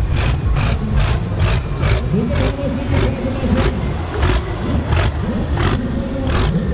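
John Deere 4240S tractor's diesel engine running under way, a heavy low rumble. Over it comes music with a sharp, steady beat about three times a second.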